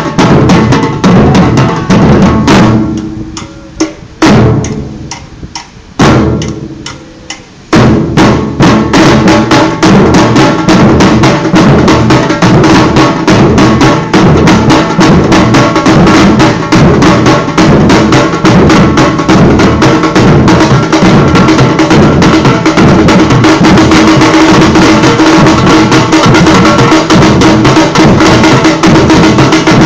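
Batucada drum ensemble playing a fast samba rhythm. About two and a half seconds in, the drums stop for a break, with a few lone hits, and the full group comes back in at about eight seconds.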